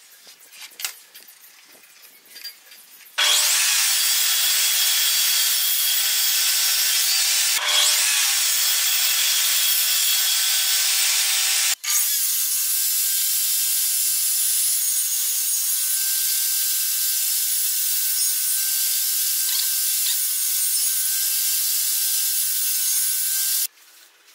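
Table saw running and cutting a wooden board: a loud, steady whine with cutting noise. It starts about three seconds in after a few light clicks, drops out for an instant near the middle, and stops just before the end.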